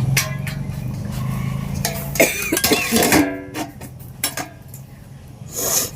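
Metal cookware clinking and knocking: a pan and utensils handled, with several sharp clinks and a brief ringing tone about two and a half seconds in. A low steady hum runs under the first two seconds.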